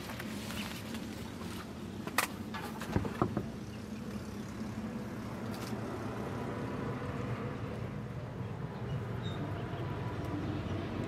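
Steady low hum of a motor running, with a few short sharp clicks about two and three seconds in.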